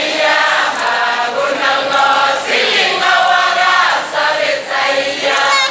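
A group of voices singing a Kalenjin traditional dance song together.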